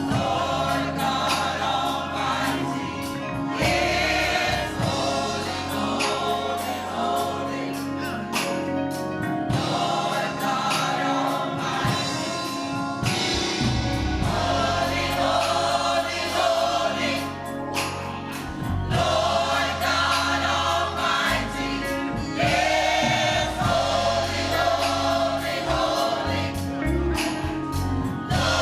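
Church choir singing a gospel song, with instrumental accompaniment carrying a steady bass line.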